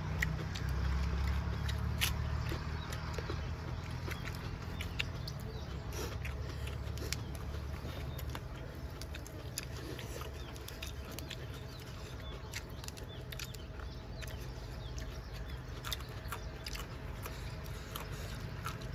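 Eating noises: scattered small crunches, smacks and mouth clicks of people chewing food eaten by hand, over a steady low rumble that is strongest in the first few seconds.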